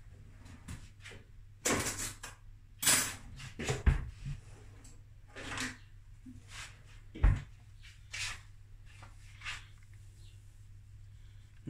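Kitchen handling clatter: a scatter of knocks and clicks as things are handled and set down, with two sharp, heavier thumps about four and seven seconds in.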